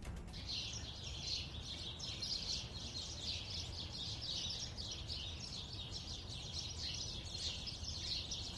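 Birds chirping in a dense, continuous chorus of quick, high calls, over a low steady rumble.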